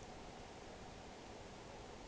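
Faint steady background hiss: room tone, with no distinct cube clicks.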